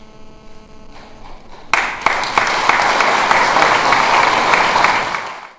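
Audience applauding. The clapping starts suddenly nearly two seconds in and cuts off abruptly near the end.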